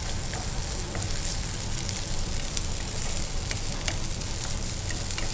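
Chopped beans, carrots and onion with grated boiled potato sizzling steadily in oil in a nonstick frying pan. A spatula stirs them, with scattered light taps and scrapes against the pan.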